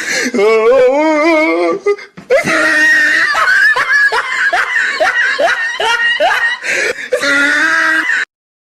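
Loud laughter: about two seconds of wavering, warbling laughs, then after a short break a long run of rapid rising laughs, several a second. It cuts off suddenly near the end.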